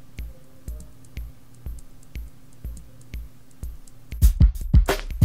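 Background music with a soft, steady kick-drum beat about twice a second; about four seconds in, a louder, fuller drum-machine track cuts in.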